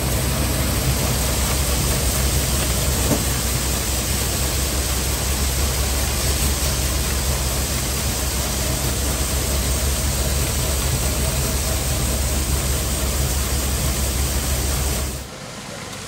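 Tractor-driven corn sheller running: a steady low engine drone under a constant hiss of shelled kernels pouring from the delivery spout. The sound drops abruptly near the end.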